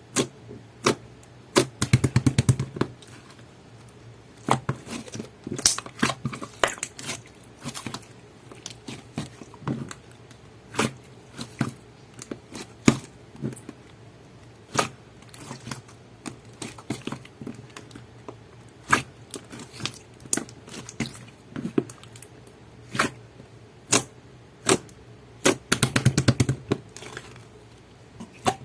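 Thick clear slime being pressed and stretched by hand, giving irregular sharp pops and clicks from trapped air, with two longer spells of dense squishing crackles about two seconds in and near the end.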